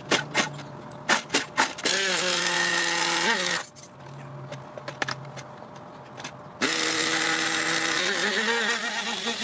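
Small O.S. nitro engine of an RC monster truck being started: a run of short clicks, then it catches about two seconds in, runs for a second and a half and stalls. After a few more clicks it starts again about two-thirds of the way through and keeps running, rising slightly in pitch near the end.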